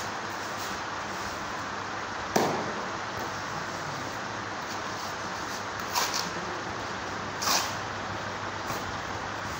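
Steel mason's trowel scraping and slapping wet cement mortar: three short sharp strokes, the loudest about two and a half seconds in, over a steady background hiss.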